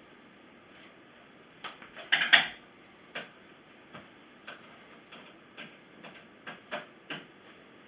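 Metal clicks and clinks of screws and parts against a steel PC tower case as a card reader is fastened into its drive bay: a loud cluster about two seconds in, then scattered single ticks.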